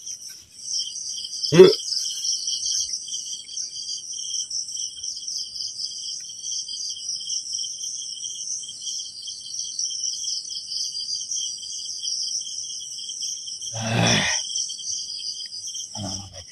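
Crickets and other night insects chirring steadily in several layered high trills, one of them pulsing. A short loud sound breaks in about a second and a half in, the loudest moment, and another brief one comes near the end.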